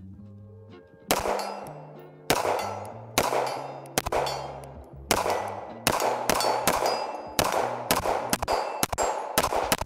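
CZ Shadow 2 Compact 9mm pistol fired about fourteen times, slow at first and then quickening to about two shots a second, each shot followed by the clang and ring of the steel targets being hit.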